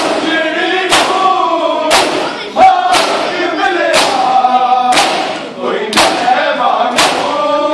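Men chanting a noha together while beating their bare chests in matam. Each hand-on-chest slap lands about once a second in unison and keeps the beat of the chant.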